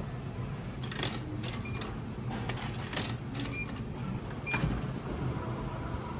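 Coins dropped one after another into a vending machine's coin slot: a string of clicks and clinks over about four seconds, with a few short high pings. A low steady hum runs underneath.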